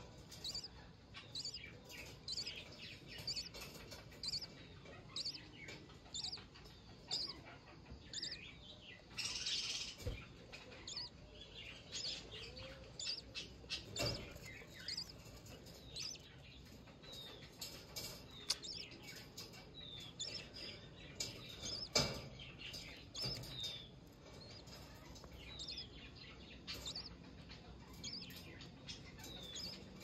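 Budgerigar chicks in a nest box giving a steady run of short, high begging chirps, about one to two a second: hungry chicks calling to be fed. A few sharp knocks cut in, the loudest about 22 seconds in.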